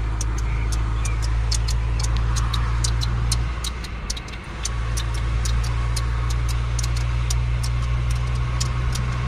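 Car cabin noise while driving: a steady low engine and road drone that dips briefly about halfway through, with many light irregular clicks over it.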